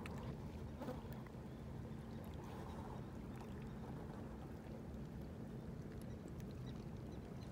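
Faint lapping of small waves on a stony riverbank, over a low steady hum.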